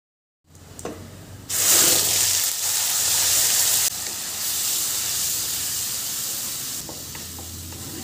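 Whole spices sizzling in hot oil in a steel kadai, then a loud sizzle about a second and a half in as a wet masala paste hits the oil. The sizzle eases off in steps as the paste is stirred with a wooden spatula, with light scraping near the end.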